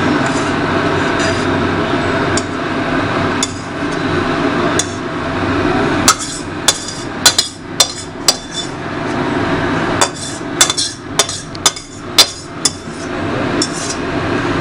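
Metal utensil knocking and scraping against a steel pan and bowl as the cooked brinjal and poppy seed curry is scooped out to serve. Sharp clinks come in quick clusters through the second half, over a steady rushing background noise.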